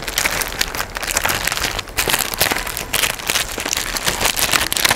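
Plastic courier mailer bag crinkling and rustling as it is handled and opened by hand, an irregular run of sharp crackles.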